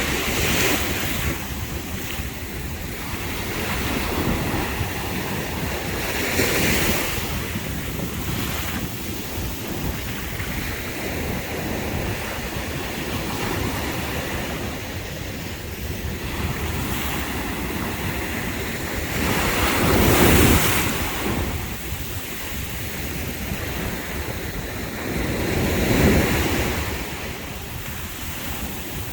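Caribbean Sea waves washing onto the beach, with wind buffeting the microphone. The surf swells several times, loudest about two-thirds of the way through and again shortly after.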